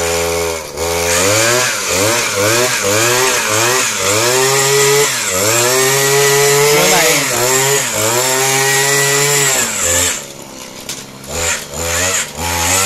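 Small petrol engine of a wheel-mounted earth auger drilling a post hole into stony soil. Its pitch rises and falls over and over as the auger bites and is eased up, then sags lower about ten seconds in before picking up again near the end.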